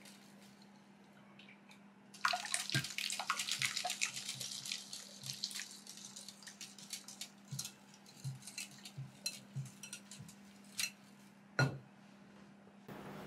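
Milk-and-cream mixture poured in a thin stream from a stainless saucepan into a glass bowl of beaten eggs, with a wire whisk clicking against the glass as it stirs. The pouring splash runs for about three seconds from about two seconds in, then the whisk goes on tapping the bowl, with one louder knock near the end.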